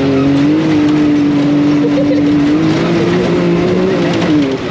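A vehicle's motor running loud and steady at one high pitch over a rushing noise. The pitch lifts a little after about three seconds, then drops briefly just before the end and picks up again.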